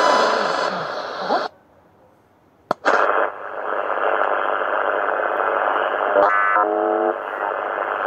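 ATS25X1 shortwave receiver's loudspeaker hissing with band noise. It mutes for about a second while switching bands, then clicks back on with a duller, narrower hiss as it is tuned through the 40 m amateur band in LSB mode. A brief burst of stepped tones comes about six seconds in, as a signal is tuned past.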